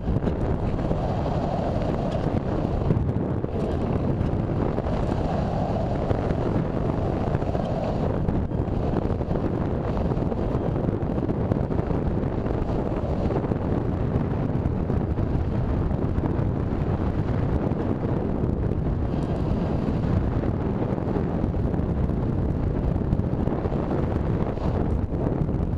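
Steady rushing of airflow over the microphone of a camera riding on an RC sailplane in flight, with a faint wavering hum in the first several seconds.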